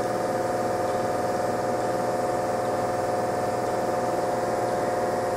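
Greater Anglia electric multiple unit standing at the platform, its onboard equipment giving a steady electrical hum with a few fixed tones.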